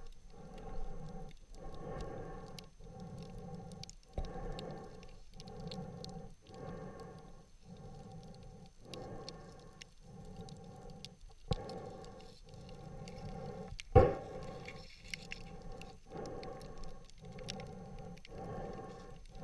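Muffled underwater sound: a pulsing swish repeating about every three-quarters of a second, with a few sharp knocks, the loudest about two-thirds of the way through.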